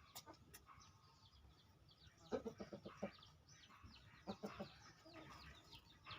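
Chickens clucking softly in two quick runs of short clucks, about two seconds in and again about four seconds in. Short, high, falling bird chirps sound throughout.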